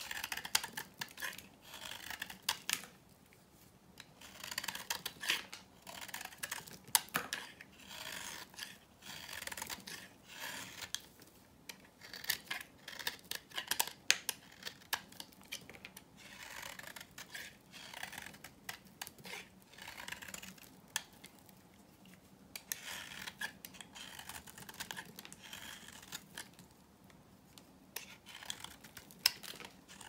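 A utility knife shaving slices off a bar of hard, dry vintage soap: crisp, crunchy scraping strokes in quick runs with sharp crackles, broken by short pauses between runs.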